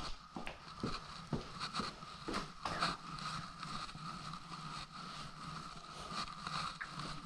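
Knocks and rustling from a handheld camera being carried and handled, with footsteps about twice a second for the first few seconds, over a steady hum.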